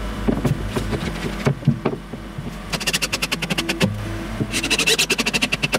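Background music with held notes and a quick, even rhythm.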